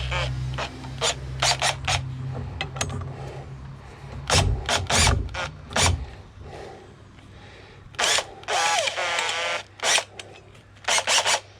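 Power drill run in short bursts, the motor spinning up and down with each squeeze of the trigger, interleaved with sharp mechanical clicks and knocks, as screws are driven to fix a carving.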